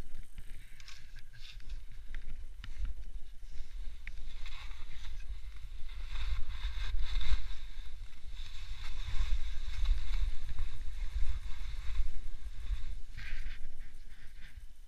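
Wind buffeting the camera's microphone with a low rumble during a fast descent, over a hiss and scrape of edges cutting through snow that swells and fades with each turn.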